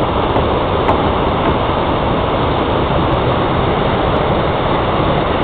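Water rushing steadily through a floodway in flood.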